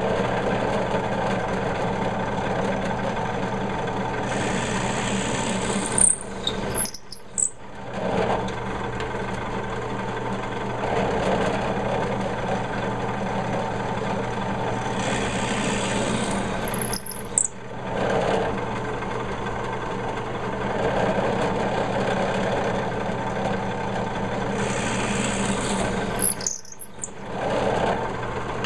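Benchtop drill press motor running steadily while the bit bores three holes into a walnut board, about ten seconds apart. Each cut ends with a short high squeal.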